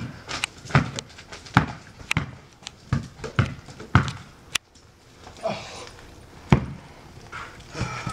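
Basketball being dribbled on a sport court, bouncing about every half second to second, with a pause of about two seconds after the eighth bounce and one more hard bounce after it.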